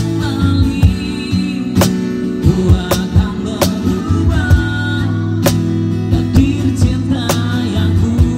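Live acoustic band music: guitar chords under a wavering vocal or melody line, with sharp percussion hits on a steady beat about once a second.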